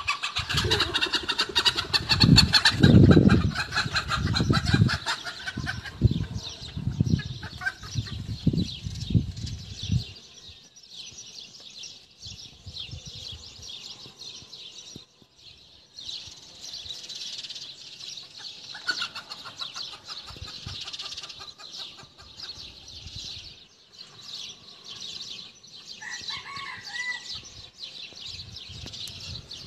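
Chickens clucking and squawking in alarm, loud and busy for the first ten seconds, then quieter, with a few calls near the end. A steady high chirring runs behind them.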